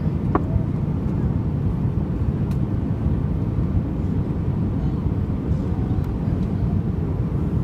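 Steady low rumble of a jet airliner, even in level throughout, with one brief short tone about a third of a second in.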